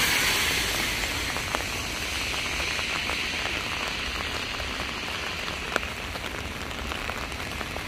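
Heavy rain falling on a flooded street, a steady patter with scattered sharper drop ticks. Tyre hiss from a vehicle on the wet road fades away over the first couple of seconds.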